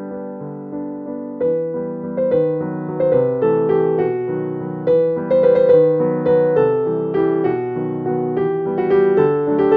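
Background piano music: a gentle melody of struck notes that grows busier after about a second and a half.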